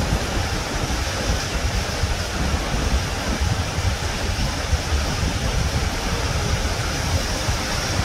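Steady background noise, a low rumble with a hiss over it, unbroken and even in level.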